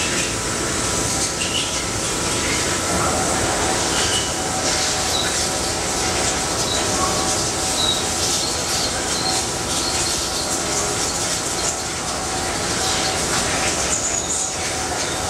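Steady mechanical running noise of a Toyoda VH45 CNC vertical machining center under power. It is an even hum and hiss with a few steady whining tones and occasional short high chirps.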